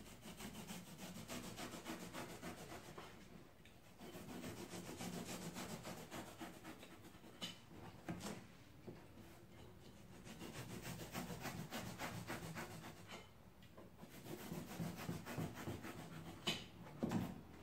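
Utility knife blade cutting and carving through thick upholstery foam: a soft, fine crackling rasp in several spells with short pauses between passes.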